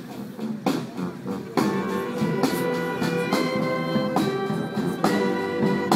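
Marching band playing: brass instruments holding chords over regular percussion strikes about once a second.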